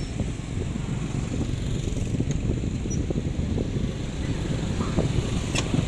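A steady low rumble of wind buffeting the microphone, with a few faint pops of distant fireworks bursting; the sharpest crack comes about five and a half seconds in.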